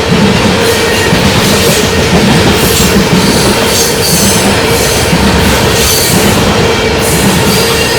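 Freight train rolling past close by: a loud, steady wheel-on-rail rumble with repeated clacks about every half second.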